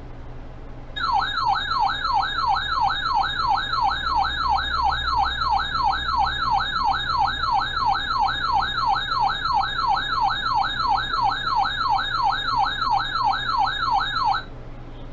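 Electronic siren-like alert tone heard over the radio broadcast: a rapidly repeating rising sweep, about two and a half sweeps a second, starting about a second in and cutting off shortly before the end. A faint steady hum of the radio feed runs underneath.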